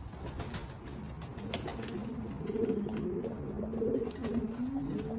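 Pigeon cooing: low, wavering coos that start about two seconds in and carry on, with faint clicks underneath.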